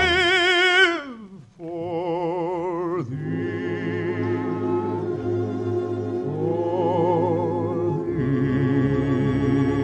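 Operetta music with orchestra. A man's singing voice holds a long note with wide vibrato, slides down and stops about a second in. After a brief hush the orchestra plays on, growing fuller about eight seconds in.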